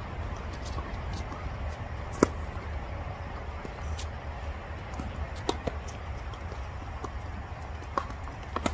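Tennis ball being struck and bouncing at intervals of a second or two, a sharp knock each time, over a steady low outdoor rumble. The loudest hit comes about two seconds in.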